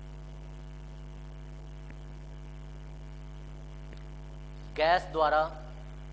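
Steady electrical mains hum, with a short two-syllable burst of a person's voice about five seconds in.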